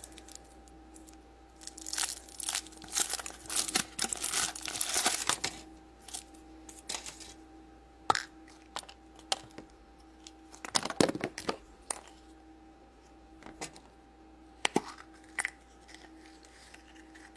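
Wrapper of a chocolate surprise egg being torn open and crinkled, in a few seconds of dense rustling, followed by scattered sharp clicks and snaps as the contents are handled. A faint steady hum runs underneath.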